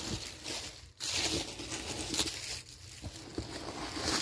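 Paper stuffing crinkling and rustling as a hand pulls it out of a leather handbag, in several bursts with short pauses.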